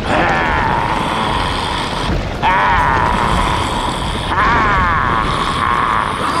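Cartoon stampede: a continuous low rumble of many animals' running footfalls, with high sliding cries over it three times, near the start, about two and a half seconds in and about four and a half seconds in.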